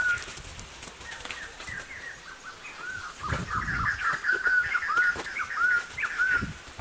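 Small birds chirping in a quick run of short, arched calls, thickest in the second half, with a brief low rustle about three seconds in.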